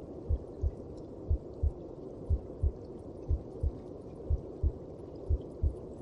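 A mother's heartbeat as heard from inside the womb: slow, even lub-dub double thumps, about one beat a second, six beats here. Under the beats runs a steady low whooshing hum.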